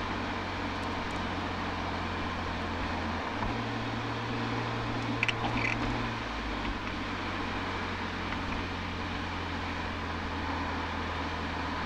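Toyota Altezza's 1G-FE straight-six running through an Apexi aftermarket exhaust, picked up at the rear bumper under steady cruising, a low drone over road and wind noise. The engine note rises slightly about three seconds in and settles back about three seconds later, with a few short clicks just past the middle.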